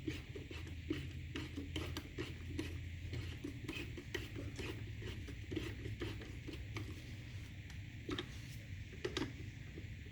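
Threaded brake pad pin of a Kawasaki KX450 rear caliper being spun in by hand with a 5 mm hex key: a run of small, irregular metal clicks and scrapes over a low hum.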